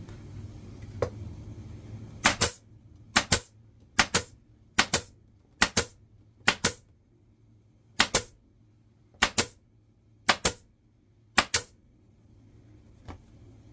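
Pneumatic upholstery staple gun firing staples into a vinyl seat cover over its base, ten shots roughly one a second, each a quick double snap. A low hum sits under the first two seconds.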